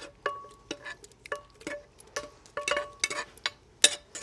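Metal sauté pan knocked and scraped as cooked salsa is emptied from it into a glass blender jar: a run of sharp clinks about three a second, several ringing briefly, the loudest near the end.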